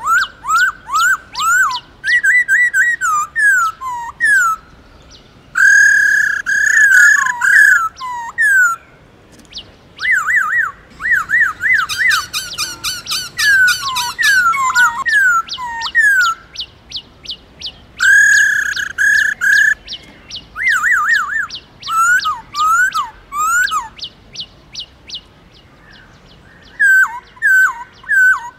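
Black-throated laughingthrush singing loud whistled phrases of rapid up-and-down swooping notes, in bursts of a few seconds with short pauses between. There is a dry, fast rattle around the middle and a run of quick high ticks near the end.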